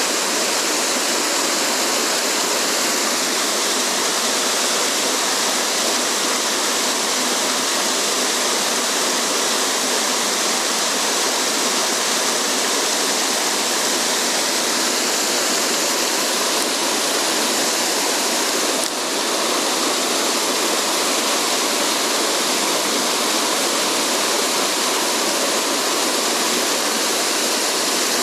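Mountain stream water rushing steadily, a loud, even hiss that does not let up.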